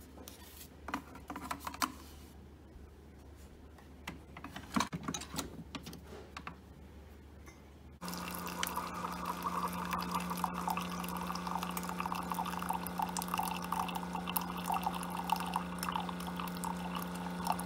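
Keurig single-serve coffee maker brewing: a few quiet clicks and knocks, then about halfway through a steady pump hum starts abruptly, with coffee streaming and trickling into a mug.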